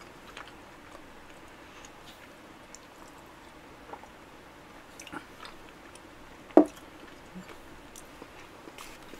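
Quiet mouth sounds of eating: soft chewing and small wet clicks while drinking milk from a glass. There is one short, louder mouth sound, like a gulp, about six and a half seconds in.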